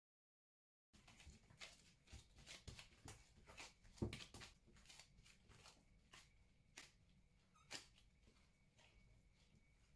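Soft, sticky squelches and slaps of risen brioche dough being punched down and folded by hand in a glass bowl, starting about a second in, with a fuller thump about four seconds in and fewer sounds near the end.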